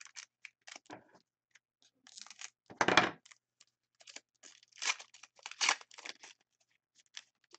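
A foil trading-card pack wrapper being torn open by hand and crinkled. There is a series of short rips, the loudest about three seconds in, and two more strong tears near the end.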